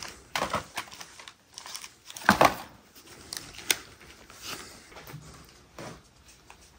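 Rustling and crinkling of old paper and debris being handled or moved about, with a sharp knock a little past two seconds in and a click a little before four.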